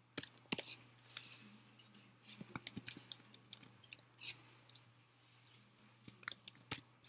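Keystrokes on a computer keyboard: scattered sharp clicks, with a quick run of typing about two and a half seconds in and another short run near the end, over a faint steady low hum.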